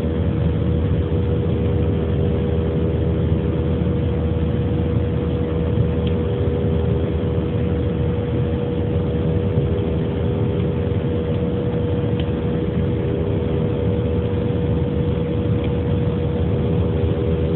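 Cabin noise of an Airbus A320-family jet airliner in the climb after takeoff: its turbofan engines run at a steady pitch under a deep, even rumble of engine and airflow noise.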